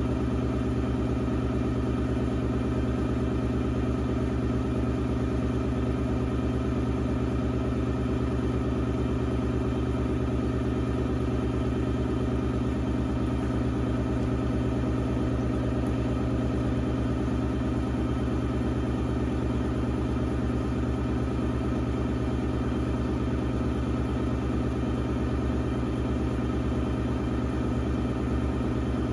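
Electric pottery wheel motor humming steadily, the wheel head turning at a constant speed.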